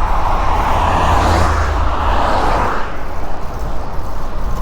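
A car passing on damp pavement, its tyre hiss swelling and fading over about two seconds in the first half, over steady wind rumble on the bike-mounted microphone.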